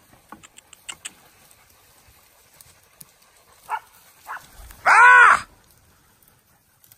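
Xarnego valenciano hunting dogs: two short faint yelps, then about five seconds in one loud, drawn-out bark that rises and falls in pitch.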